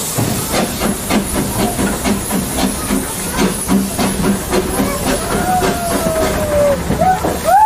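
Narrow-gauge steam locomotive on the move, heard from the engine itself: a steady hiss of escaping steam over a quick, even chuffing of the exhaust, about three beats a second. From about five seconds in, a wavering high squeal from the train rises and grows stronger near the end.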